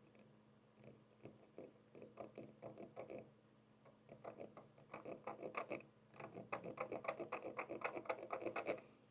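Quick scratchy strokes of a marker drawing a cut mark on a bicycle fork's metal steerer tube, several strokes a second in short spells, busier in the second half.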